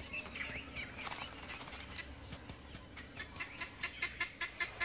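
Birds calling: scattered chirps at first, then from about three seconds in a fast run of repeated calls, about five a second, growing louder.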